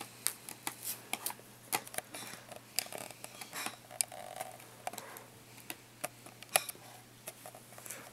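Irregular small clicks and ticks from a small screwdriver and tiny screws being worked into the metal frame that holds a laptop's LCD panel, the screws fiddly to start.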